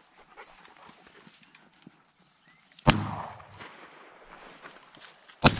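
Two shotgun shots about two and a half seconds apart, each with a short echo.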